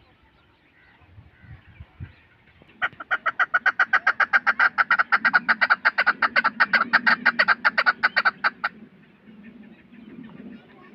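Chukar partridge calling a fast, even string of sharp 'chuk' notes, about eight or nine a second, for roughly six seconds, then stopping abruptly.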